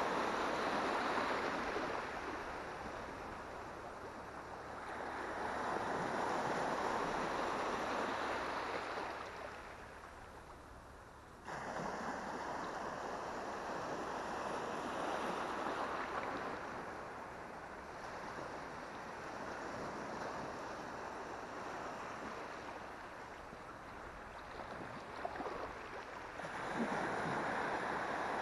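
Wash of shallow sea water and wind, a steady rushing noise that swells and fades every few seconds, with an abrupt jump in loudness a little before halfway.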